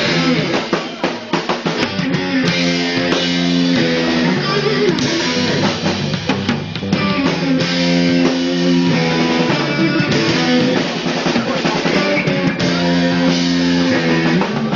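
Live band playing an instrumental passage on guitar and drum kit, with steady drumming under held guitar chords and no singing.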